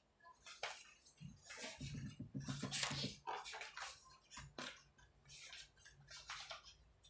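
Paper pages of a thick document rustling as they are flipped over one after another. Pen strokes on paper come in between as each page is signed.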